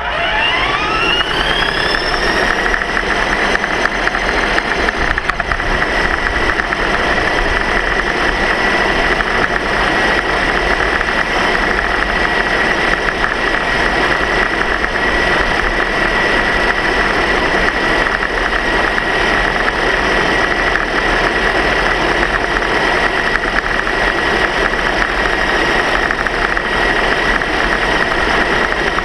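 Small electric motor spinning up over about two seconds to a steady high whine, then running at constant speed over steady rolling noise.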